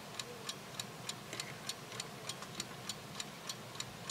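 Steady, evenly spaced mechanical ticking, several ticks a second, like a clock.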